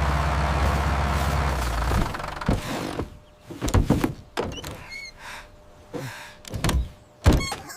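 Tractor engine running with a low steady drone that stops about two seconds in, followed by scattered thunks and knocks, the loudest near the end.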